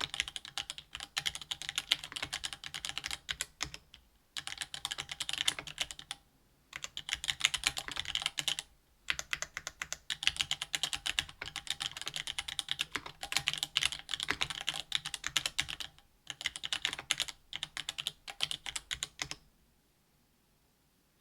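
Fast typing on a RAMA THERMAL mechanical keyboard with stock Gateron Black Ink linear switches, an aluminium plate and GMK keycaps. Rapid keystrokes come in runs broken by short pauses, and the typing stops near the end.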